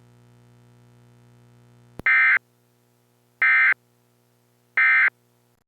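Electronic broadcast alert tone: three short, loud bursts about a second and a half apart, following a click. A faint steady hum under them cuts off just before the end.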